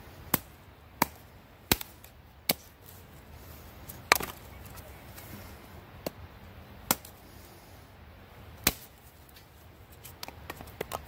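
DeWalt 20 oz camper's axe chopping dry wood into kindling: about eight sharp separate chops roughly a second apart, the loudest about four seconds in, then a quick run of lighter taps near the end.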